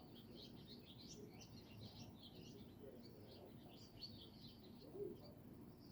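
Faint chatter of small birds, many short, high chirps overlapping, over a low, steady background rumble.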